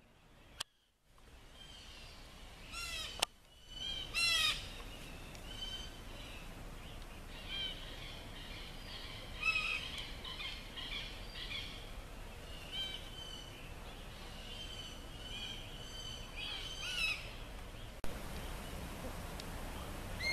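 Several birds calling: many short chirps and whistled notes, some falling in pitch, over a faint steady outdoor background.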